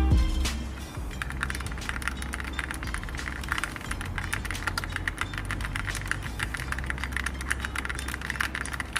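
Fast, continuous typing on an Akko MOD007 mechanical keyboard with Akko Cream Yellow HE (Hall-effect magnetic) switches: a dense run of irregular keystroke clicks starting about a second in.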